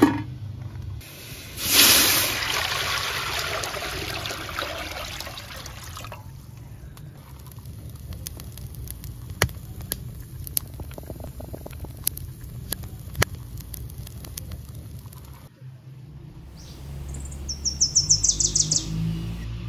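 Water pouring and splashing, loudest about two seconds in and fading away over the next few seconds. Then a wood fire crackles with scattered sharp pops, and near the end a bird sings a rapid run of notes falling in pitch.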